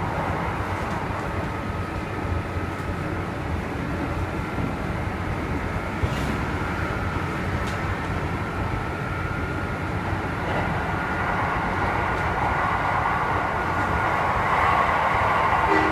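Kintetsu 2610 series electric train running, heard from inside the car: a low rumble with a thin steady high whine mixed in, the unusual running noise of set X25, growing louder toward the end.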